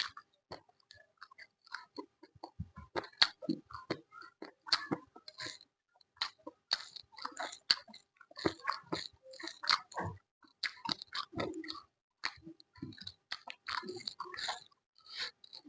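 Close-miked chewing with crunching and wet mouth sounds as a person eats crisp food, in a rapid, irregular run of small crackles with brief pauses.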